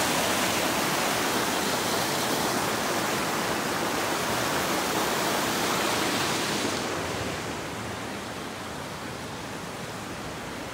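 Steady rush of a fast-flowing mountain creek, an even hiss of water that eases somewhat about seven seconds in.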